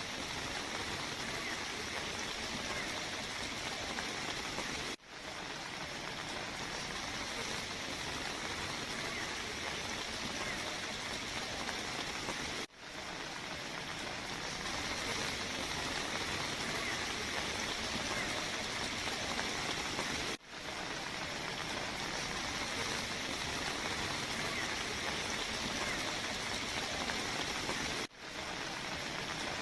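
Steady rushing noise of water from heavy rain and flowing floodwater. It is broken by brief drop-outs about every eight seconds.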